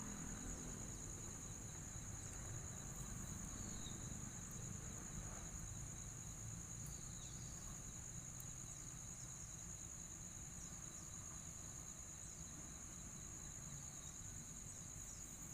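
Steady high-pitched drone of insects, typical of crickets, with a few faint short chirps about four and seven seconds in, over a low rumble.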